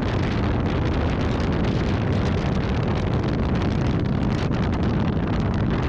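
Steady rush of wind buffeting the microphone in a moving car, heavy in the low end.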